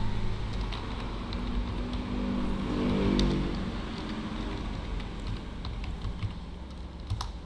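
Keystrokes on a computer keyboard, a scattered run of light clicks over a steady background hiss. A low hum swells and fades around the middle of it.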